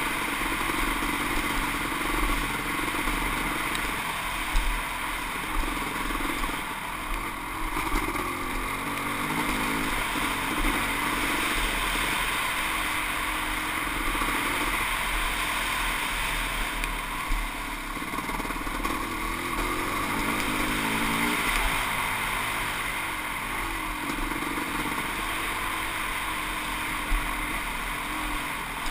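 Kawasaki KX500 two-stroke single-cylinder dirt bike running along a trail, its pitch rising and falling with the throttle, heard from a helmet camera over a steady rush of wind noise. A few brief knocks stand out.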